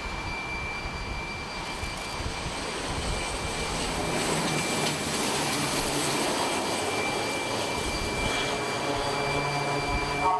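C-2 Greyhound's twin turboprop engines running: a steady high turbine whine over a rushing roar, growing slightly louder about four seconds in.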